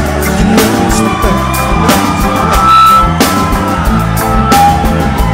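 Live reggae-rock band playing an instrumental passage: electric guitar holding long lead notes over bass and drum kit, with no singing.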